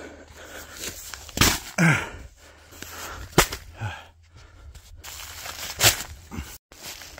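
Scattered knocks and rustles of a person moving over forest leaf litter, with a short falling sigh about two seconds in.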